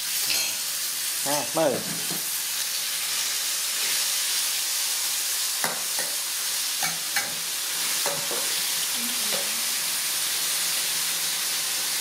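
Beef and greens sizzling steadily in a steel wok over a portable gas burner, with a metal spatula scraping and tapping the pan as the food is stirred. A brief wavering squeak rises over the sizzle about a second and a half in.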